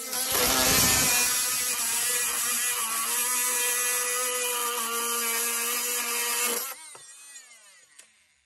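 Corded oscillating multi-tool cutting into a carpet kicker's metal part, running at a steady high buzz. About two-thirds of the way through it is switched off and winds down with falling pitch.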